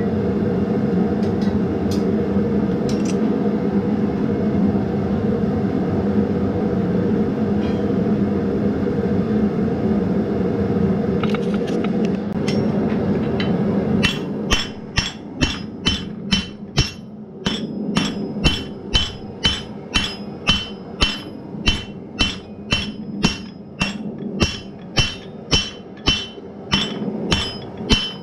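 A gas forge running steadily for about the first half. Then a hand hammer striking red-hot steel on the anvil, about two blows a second, each with a short ring from the anvil, drawing out the stem of a forged leaf.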